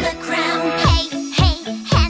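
Pop music. It opens sparse, then about a second in a kick drum comes in at about two beats a second under a wavering melody.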